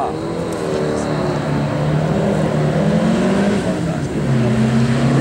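Porsche 356 Speedster's engine running as the car drives past, its note steady and growing louder over the last second or so.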